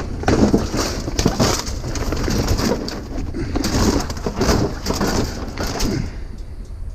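Irregular rustling, scraping and knocking of curbside junk being tugged loose and handled by hand, easing off near the end.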